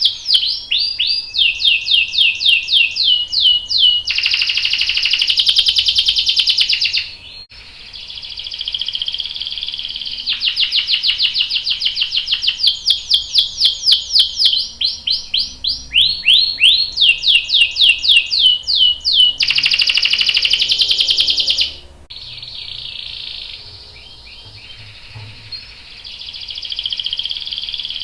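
Domestic canary singing: tours of fast repeated down-slurred whistled notes alternating with long, dense rolling trills, with a brief lull about a third of the way in and a quieter stretch near the end.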